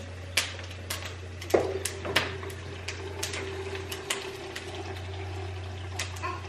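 Scattered light clicks and knocks of things being handled and packed in a kitchen, over a steady low hum, with a faint steady tone setting in about a second and a half in.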